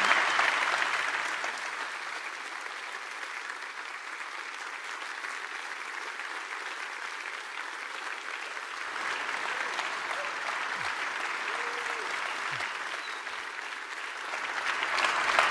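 A large audience applauding, loudest at first and easing off after about two seconds into steady clapping, with a few faint voices heard in the second half.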